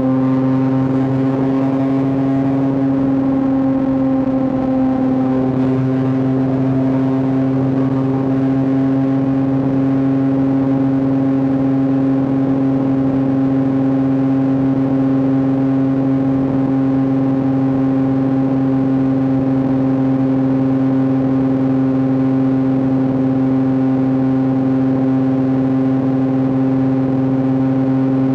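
Yamaha R9 motorcycle's three-cylinder engine and exhaust running at a steady, unchanging engine speed while the bike cruises, a constant even drone.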